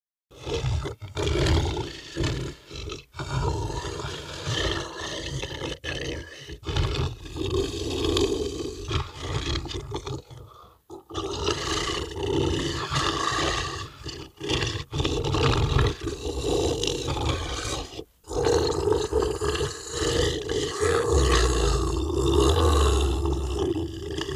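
Loud, continuous animal growling and roaring, broken by a few short gaps about three, eleven and eighteen seconds in.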